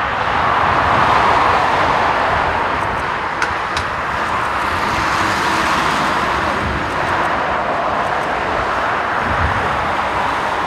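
Rolls-Royce Trent 1000 jet engines of a Boeing 787 airliner running at low thrust as it taxis, a steady rushing noise.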